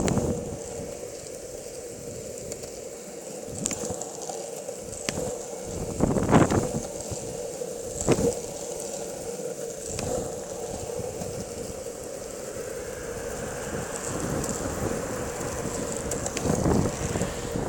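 Longboard wheels rolling on asphalt, a steady hum and rumble, with wind buffeting the microphone in short gusts, the strongest about six seconds in.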